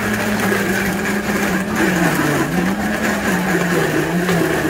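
A small motor running with a steady hum, its pitch dipping and recovering about two seconds in and sagging again near the end.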